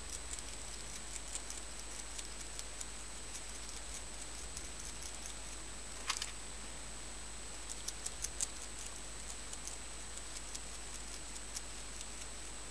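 Long-eared hedgehog chewing mealworms: irregular small crisp clicks, with a louder cluster about six seconds in and a few stronger clicks around eight seconds.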